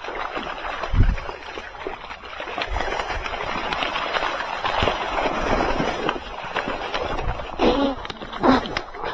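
Water splashing and fish thrashing as the day's catch of grass carp is handled, with a heavy thump about a second in and scattered slaps and clicks.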